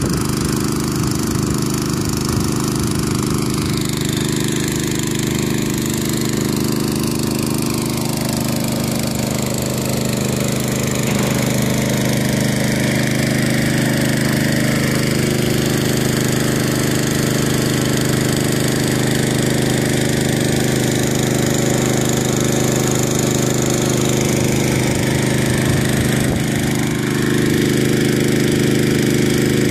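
Engine of a 3-inch water pump running steadily below full throttle, pumping water through the hoses.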